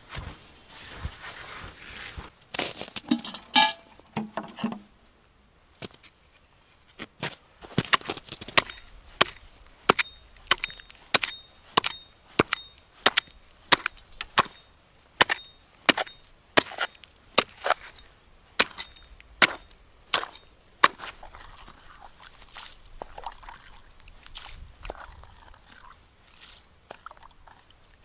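Axe chopping a hole through lake ice: a steady run of sharp strikes, about one and a half a second, many with a short high ring. The strikes stop well before the end, leaving softer scattered sounds.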